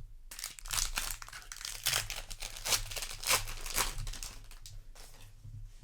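Foil wrapper of a Magic: The Gathering play booster crinkling and crackling as it is handled and torn open, in quick irregular crackles.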